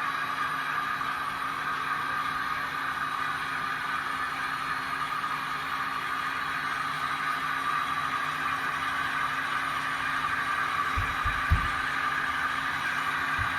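Model trains running on the layout: a steady hum and rolling rail noise, with a few low thumps and one sharp knock about eleven seconds in.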